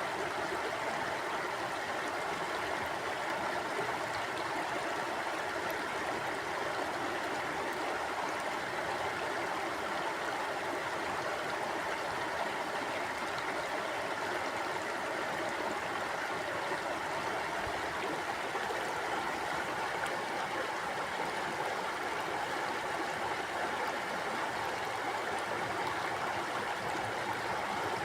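Mountain stream flowing steadily over rocks, a constant rushing of water with no breaks or changes.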